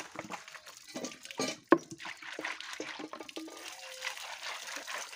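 Water and paddy-field snails tipped out of a plastic bucket onto wet concrete: splashing water and the clicking clatter of snail shells, with one sharp, loud click near the middle.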